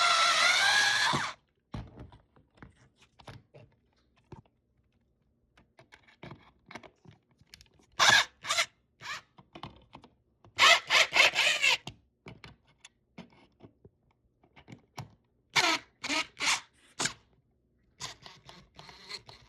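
Screws being driven with a screwdriver while a smoke alarm is mounted: a rasping burst of about a second at the start, then scattered clicks and several more short rasping bursts a few seconds apart.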